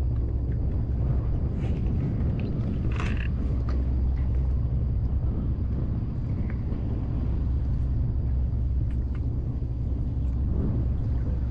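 Strong wind rumbling steadily on the microphone, with a few faint clicks and knocks, the clearest about three seconds in.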